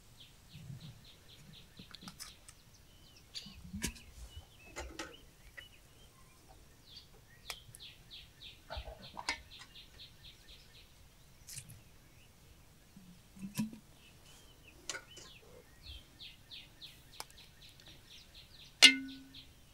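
A small songbird repeating a fast, high trill three times, several seconds apart. Scattered light clicks and knocks sound between the trills, and one loud sharp knock that rings briefly comes near the end.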